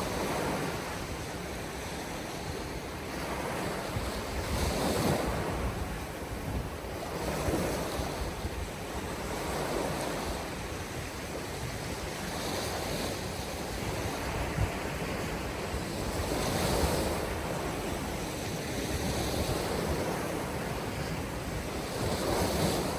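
Surf breaking on a beach, the waves swelling and washing in every two to three seconds, with strong wind buffeting the microphone.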